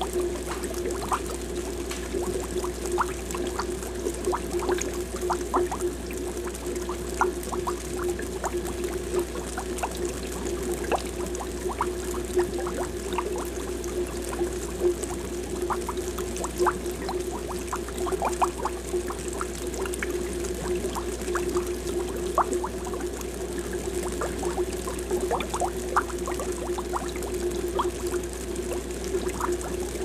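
Aquarium air bubbles rising in continuous streams and bubbling at the water surface, a dense irregular patter of small blips and pops. A steady low hum runs underneath.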